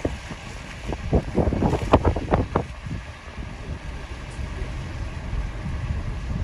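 Blizzard wind buffeting the microphone: a steady low rumble with a cluster of sharper gusts about one to three seconds in.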